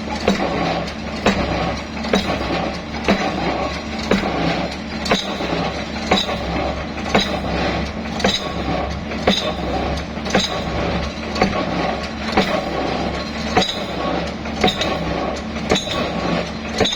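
Excavator running steadily, with sharp metallic clanks about once a second over the engine drone.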